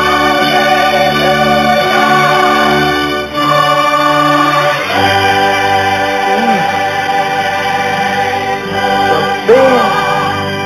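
Background music: held organ chords with singing, the chords changing about three and five seconds in.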